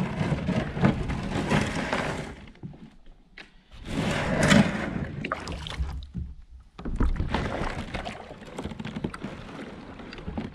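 Boat moving across a lake: rushing wind and water noise in uneven surges, with short lulls about two and a half and six and a half seconds in.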